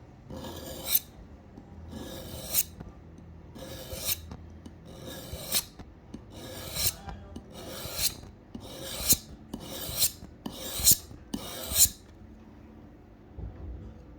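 Steel blade of a Japanese chisel-style knife being stroked across a DMT diamond sharpener: ten rasping scrapes, each swelling to a peak at its end. The strokes come a little faster toward the end and stop about twelve seconds in.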